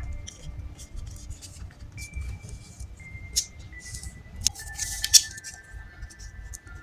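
Soft background music of held, chime-like tones stepping from note to note. Over it, paper rustles and light clicks come from handling the paper, with a louder crinkle about five seconds in.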